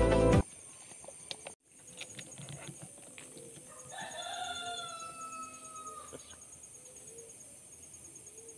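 Background music cuts off about half a second in, leaving a steady high insect drone. About four seconds in a rooster crows once, a call of about two seconds that falls slightly in pitch at the end.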